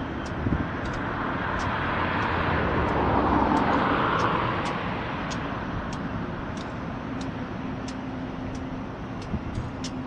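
A road vehicle passing close by, its noise swelling to a peak about three to four seconds in and then fading, over a steady traffic rumble. Faint high ticks repeat about every half second throughout.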